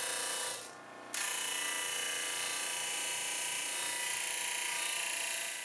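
Electric disc sander running, with a wooden board held against the spinning sanding disc: a steady whirring grind with a high hiss. It drops away briefly just before a second in and comes back suddenly, then holds steady.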